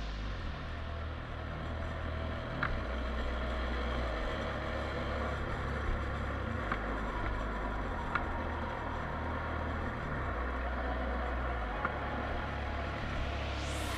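Small off-road motorcycle riding along a dirt track, its engine running steadily with wind and rattle noise, heard through an action camera. There are a few sharp knocks through the ride.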